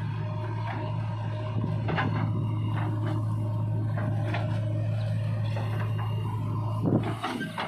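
Diesel engine of a backhoe loader or tractor running steadily at a constant low pitch, with scattered clanks and knocks and a louder thump about seven seconds in.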